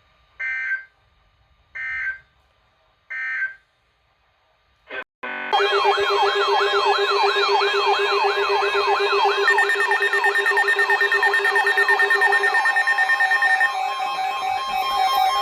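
Three short warbling data bursts of an Emergency Alert System end-of-message (SAME) code. From about five seconds in, a loud, dense layering of fast wailing siren-like sweeps and steady electronic tones.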